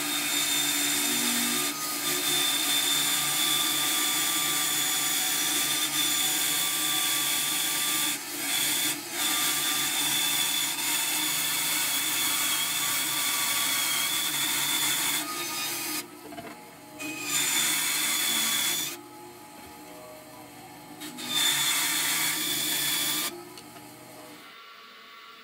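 Bandsaw running and cutting through a sheet of black micarta, a steady whine over a hissing cut. The cut stops briefly a few times in the last third.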